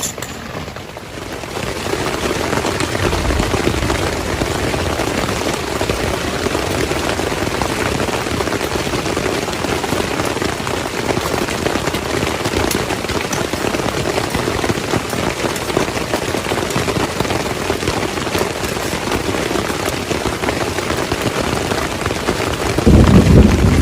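Steady rain falling on a tent, swelling up about a second and a half in and then holding steady. A louder low rumble comes in near the end.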